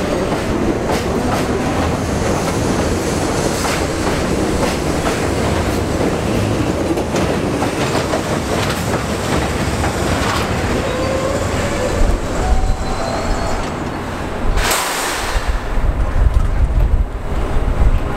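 R42 subway train running through the station, its wheels clicking over rail joints with faint wheel squeal. About three-quarters of the way in, a short, loud hiss cuts through, followed by heavy low rumbling.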